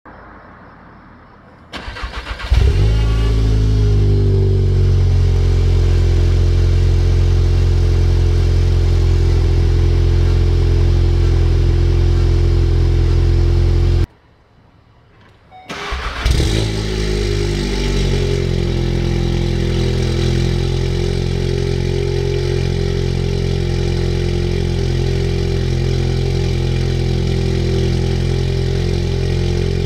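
Volkswagen Golf R Mk7.5's 2.0-litre turbocharged four-cylinder cold-started twice, heard at the quad exhaust tips. Each time there is a short crank, a flare of revs as it catches, then a steady fast cold idle. One start is on the stock exhaust, the other with a catless downpipe and resonator delete.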